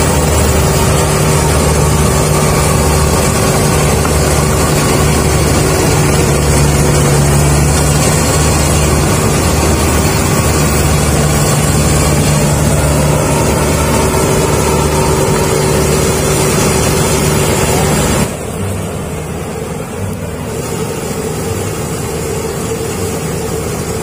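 Rice combine harvester's engine running steadily under load, a loud drone with a pulsing low hum. About 18 seconds in it drops suddenly to a quieter, steady drone.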